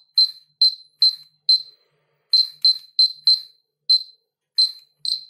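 Polimaster PM1703GNA dosimeter giving loud, short, high-pitched beeps at an uneven rate, about two a second. It is signalling gamma radiation from a metal sample held against its top.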